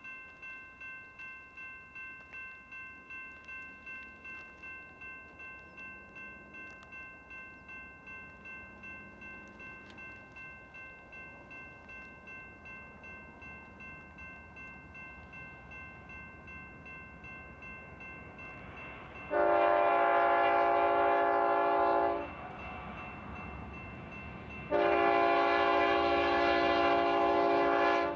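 Railroad grade-crossing bell ringing in quick, even strokes. About two-thirds of the way through, a BNSF freight locomotive's air horn sounds two long chords as the train approaches the crossing, much louder than the bell.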